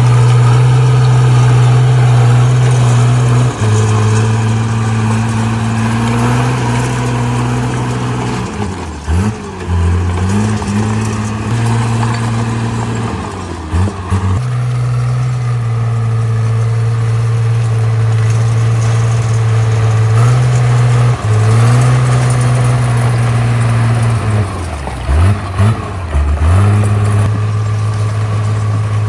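Komatsu D37P bulldozer's diesel engine running steadily, its pitch dropping sharply and recovering several times, around a third of the way in, about halfway, and near the end.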